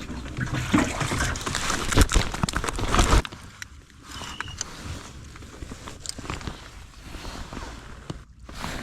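Water splashing and sloshing for about three seconds, stopping abruptly, then quieter small knocks and handling noises.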